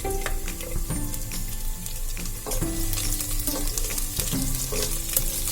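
Chopped garlic sizzling in hot oil in a pan, being stirred, with frequent sharp clicks of the utensil against the pan.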